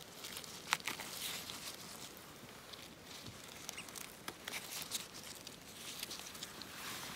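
Faint, irregular light ticks and crackles of someone moving through forest undergrowth, with a few sharper clicks scattered through.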